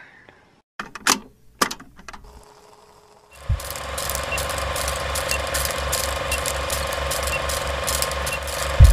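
Old film projector sound effect: a few sharp clicks, then about three and a half seconds in a steady mechanical clatter with a fast, even flutter and a faint tick about once a second starts up. It cuts off near the end with a loud thump.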